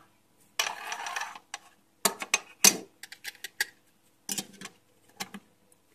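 Small metal tin being opened and handled: a brief scraping rustle, then a run of sharp metallic clicks and clinks, with a few more clicks near the end.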